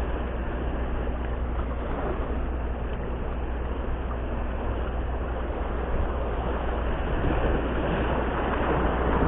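Sea waves washing over shoreline rocks, with wind buffeting the microphone as a steady low rumble under the hiss of the water; it grows slightly louder near the end.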